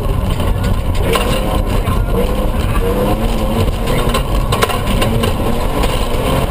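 Toyota 4x4 pickup's engine at rally pace, heard from inside the cabin, its pitch rising and falling with the revs over steady gravel and tyre rumble. A few sharp knocks come through, about a second in and again near the five-second mark.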